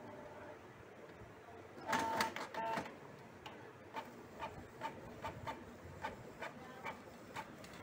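Canon PIXMA G2000 inkjet printer mechanism working as it starts a print: a burst of loud clicking and clatter with short tones about two seconds in, then regular ticking about three times a second.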